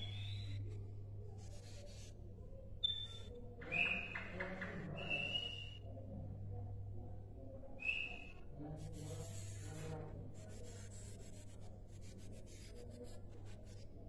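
Caged sikatan londo (a small flycatcher) giving short, high whistled notes a few seconds apart, one of them with a quick rattle beneath it. A steady low hum runs underneath, with faint scratchy ticks in the second half.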